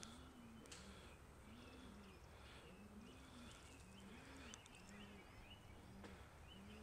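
Domestic pigeons cooing faintly in a coop: a steady run of low, rounded coos, about one or two a second, with faint higher chirps among them.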